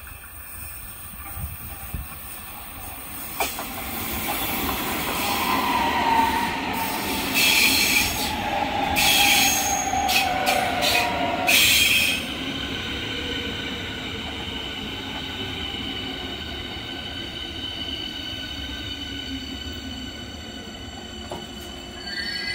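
Berlin S-Bahn class 483/484 electric train pulling into the station. As it brakes, an electric whine falls in pitch, and between about seven and twelve seconds in there are several loud high squeals. After that a steady rolling rumble carries on as the train slows along the platform.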